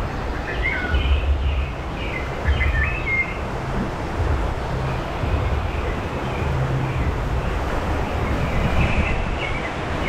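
Water rushing and churning along a river rapids ride channel under a moving raft, a steady noisy wash with a strong low rumble. Birds chirp several times in the first three seconds and again near the end.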